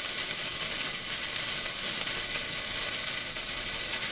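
Hand-held sparkler burning with a steady fizzing hiss and fine crackle as it throws sparks.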